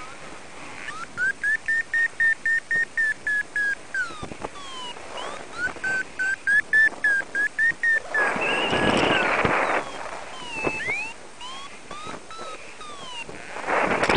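Paragliding variometer beeping in quick trains of short tones, about three to four a second, the climb signal of a glider rising in lift. Gusts of wind hit the microphone about eight seconds in and again near the end.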